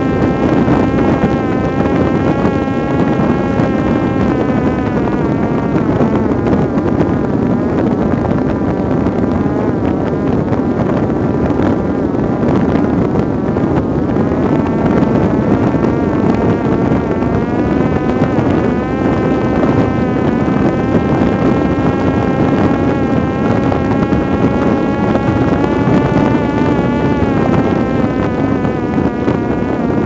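Parrot Disco fixed-wing drone's electric motor and propeller running steadily at part throttle, a whine that wavers slightly in pitch, with wind rushing over the airframe and onboard microphone in flight.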